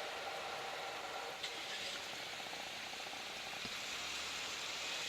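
Steady hissing background noise.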